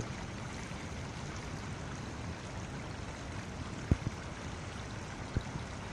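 Steady sound of a small river's shallow water running over stones, with three short knocks, two close together about four seconds in and one near the end.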